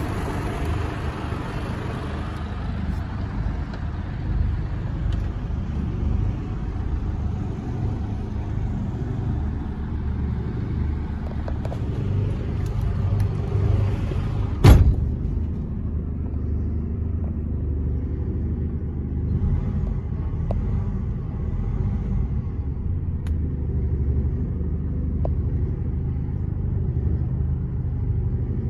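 Mercedes-Benz Actros 2551's straight-six diesel engine idling steadily, heard from inside the cab. There is a single sharp knock about halfway through.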